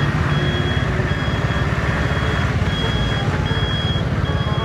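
Tow truck's engine running with a steady low rumble, and its warning beeper sounding a high, even beep about once every 0.8 seconds.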